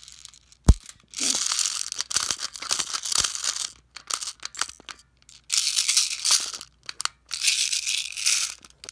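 Plastic airsoft BBs rattling through a MetalTac speed loader into a CO2 pistol magazine, in stop-start bursts with a couple of sharp plastic clicks, as the loader jams.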